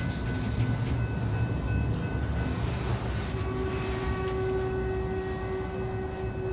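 Freight car rolling with a steady low rumble, overlaid by a thin metallic squeal from the running gear that holds several steady pitches and grows stronger about three seconds in.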